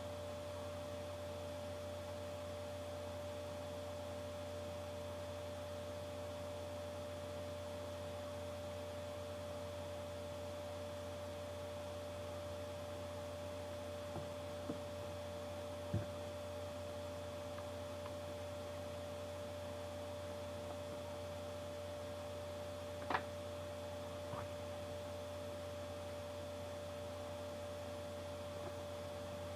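Steady electrical hum with a constant higher tone above it, with a few soft clicks near the middle and a sharper one about two-thirds of the way through.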